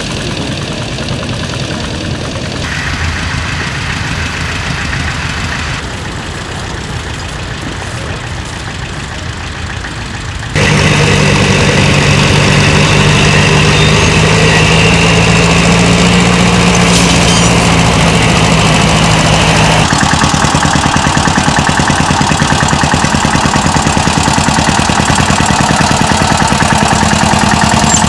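Vintage tractor engines running while pulling ploughs: a steady, even-pulsing engine note. It becomes much louder and deeper about ten seconds in, when a tractor is close by, and the note changes again about two-thirds of the way through.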